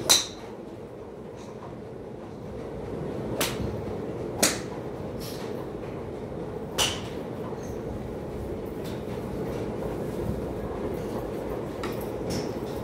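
Sharp, ringing cracks of golf clubs striking balls in neighbouring driving-range bays: four hits, the loudest just after the start. Under them runs a steady low hum.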